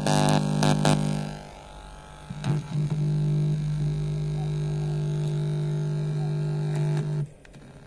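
Music playing through a homemade mini transistor power amplifier and its oval speaker stops about a second in. From about two and a half seconds a steady low electrical hum comes from the amplifier, then cuts off suddenly near the end.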